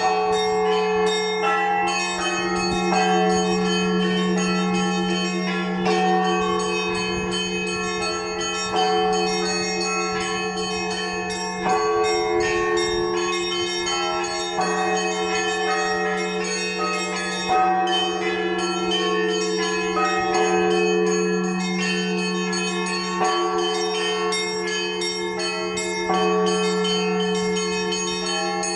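Orthodox church bells rung together in a peal (zvon). Smaller bells keep up a quick, rhythmic pattern over the steady hum of a large bell, with a heavy accented stroke about every three seconds.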